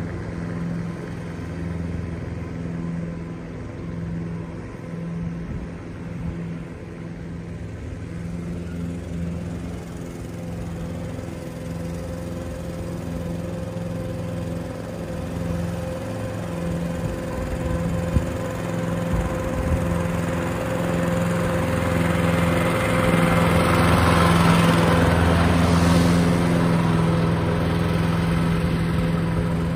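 Toro ProStripe 560 walk-behind mower's engine running steadily under load as it cuts grass, a constant hum that grows louder as the mower comes close in the second half.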